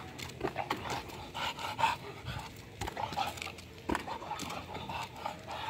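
Old English bulldog panting hard in short, irregular breaths, with a few short thuds.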